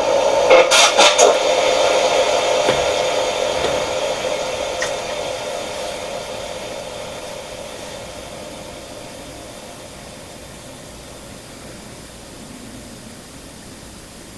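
Spirit box radio-sweep static: a steady hiss with a few short clicks in the first second or so and another about five seconds in, growing steadily quieter.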